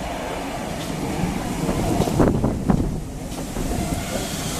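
Train moving on the track with a steady rumble, and a cluster of sharp metallic clanks about two seconds in.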